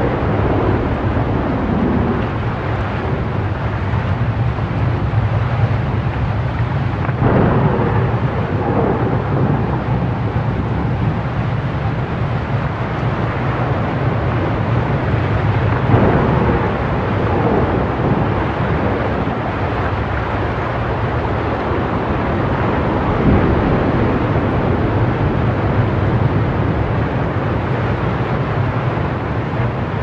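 Heavy rushing, churning water with a deep rumble, swelling in several louder surges.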